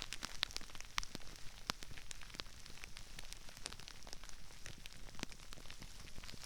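Crispy rice grains raining down around a binaural microphone: a dense, irregular patter of small crackles and pops, with now and then a sharper snap.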